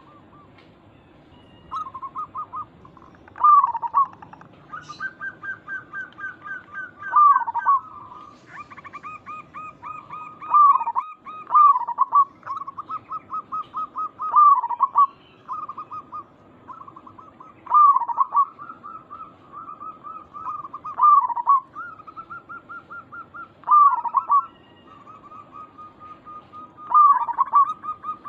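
Zebra dove (perkutut) cooing: a loud, looping coo every three to four seconds, with fast rolling runs of softer notes between them.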